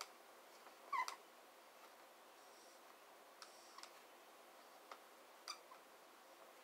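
Marker squeaking and tapping faintly on a small whiteboard as a drawing is made: a few short squeaks and clicks, the loudest about a second in.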